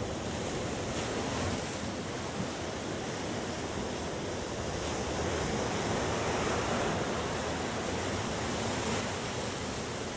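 Ocean surf breaking and washing over rocks at the shore: a steady rush of water noise that swells a little now and then.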